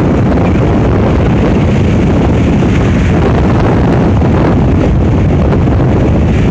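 Strong wind buffeting the phone's microphone, a loud, steady low rumble, over surf breaking on the shore.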